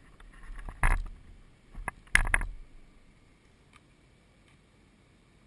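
A few knocks and rattles on the drone's camera: one cluster about a second in and a quicker run of three or four just after two seconds, then only faint background. The rotors are not yet spinning.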